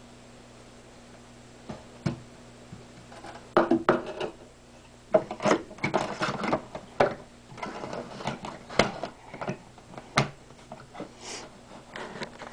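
Handling noise: a few clicks, then from about three and a half seconds in a fast run of knocks, taps and clatter of hard objects being moved close to the microphone, thinning out to a few taps near the end. A faint steady electrical hum lies underneath.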